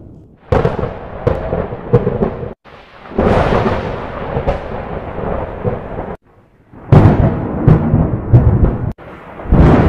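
Thunder sound effects: four separate claps, each a sharp crack followed by a rolling rumble. The first three cut off abruptly, and the last starts near the end.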